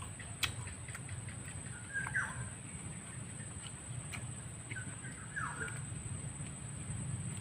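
Wild bird calling twice, each a short downward-sliding call, about three seconds apart.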